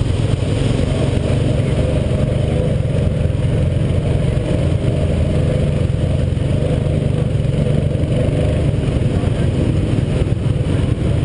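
Snorkeled ATV engine running steadily under the rider as it crosses shallow muddy water, a low, even drone with no pauses.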